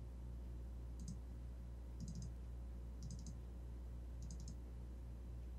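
Computer mouse clicking: a short cluster of two or three quick clicks about once a second, four times, over a steady low electrical hum.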